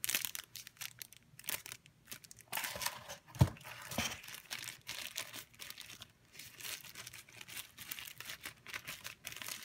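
Crinkling and rustling of paper wrapping and packaging as sunglasses are unwrapped and handled. There is a single sharp knock about three and a half seconds in.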